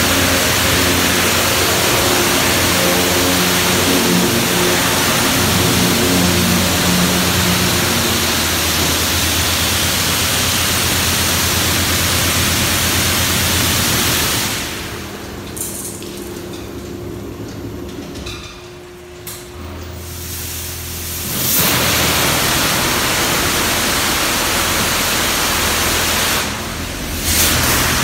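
D&S Super 5000 in-bay car wash spraying high-pressure water over a car: a loud, steady hiss with a low machine hum under it at first. The spray cuts out about halfway through, stays off for several seconds, then comes back on, dipping again briefly near the end.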